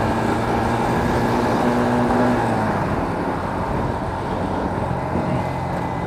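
Yamaha Sniper 150 motorcycle's single-cylinder engine running steadily while riding, with wind and road noise, heard from a microphone inside the helmet with its visor closed.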